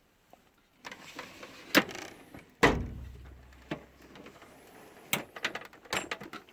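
Steel drawer of a Snap-on KRA tool chest sliding on its runners and shutting with a loud bang that rings low, followed a couple of seconds later by a quick run of metallic clicks and rattles as the next drawer is pulled open and its tools shift.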